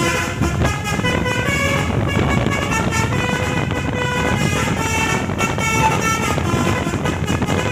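Tour bus's 'telolet basuri' musical horn playing a tune of short notes that change pitch a few times a second, over steady road and engine noise.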